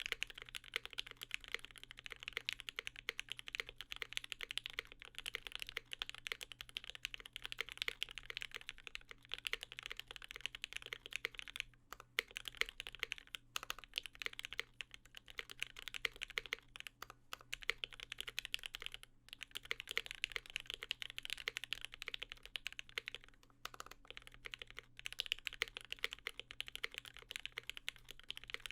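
Continuous typing on a custom aluminum-plate mechanical keyboard with lubed Gateron Mink linear switches and GMK keycaps: a dense stream of keystrokes in runs of several seconds, with a few short pauses.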